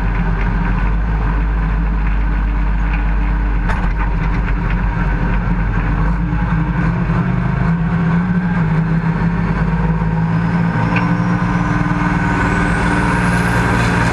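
International Harvester 1066 pulling tractor's turbocharged diesel engine running steadily while the tractor stands still. In the last few seconds a high turbo whine rises steadily as the engine builds revs.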